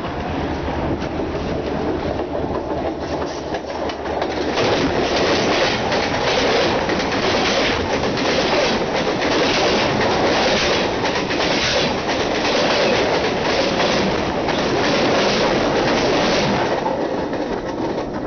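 Train cars rolling directly overhead, a steady rail rumble with repeated clicks of the wheels over the track. It grows louder about four seconds in and fades near the end as the train finishes passing.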